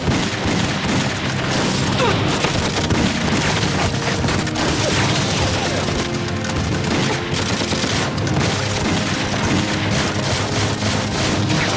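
Heavy gunfire from rifles and pistols in a dense, unbroken volley, mixed with explosions, over background music.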